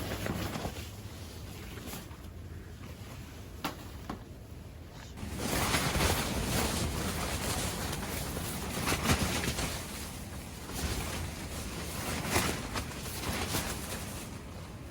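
Storm wind blowing hard. A strong gust builds about five seconds in, and a few sharp knocks come through it.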